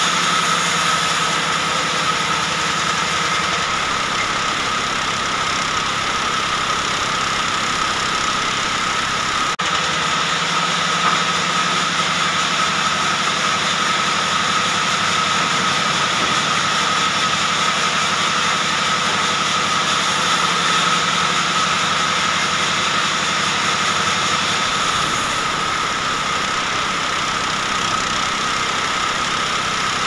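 Large sawmill band saw running steadily while a log is ripped lengthwise into a slab: a continuous machine drone with a steady whine.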